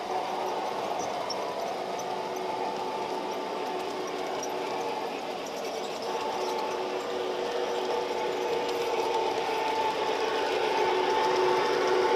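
Model freight train running past at close range: a steady mechanical whir from the motors and gearing, with the cars' wheels rattling along the track, growing a little louder near the end.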